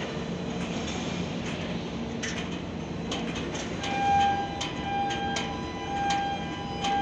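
Steady machinery hum of a container gantry crane at work, with scattered sharp metallic clicks. From about four seconds in, a repeating beep sounds on and off.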